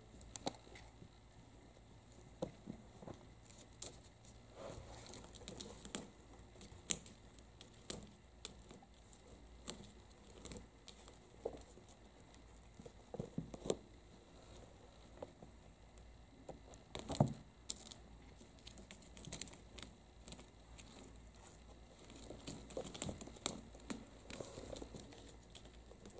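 Kittens play-fighting in a woven rope basket: faint, irregular scratching, tapping and rustling from their paws and claws on the basket and against each other, with one louder knock about two-thirds of the way through.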